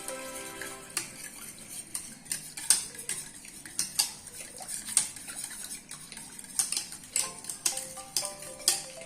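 A utensil stirring the uncooked pudding mixture in a pot, clinking sharply against the metal in irregular strikes about once a second as the ingredients are blended evenly.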